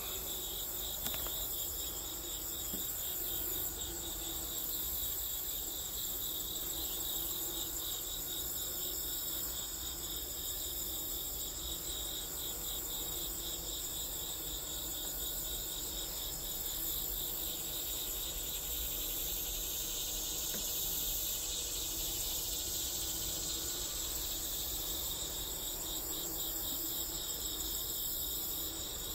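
Steady chorus of singing insects: a rapidly pulsing, cricket-like trill over a higher continuous buzz that runs without a break.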